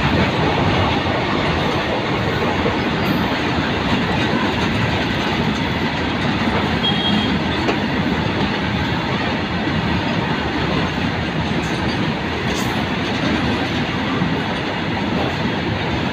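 Freight train of tank wagons rolling past close by: a steady rumble and clatter of wagon wheels on the rails.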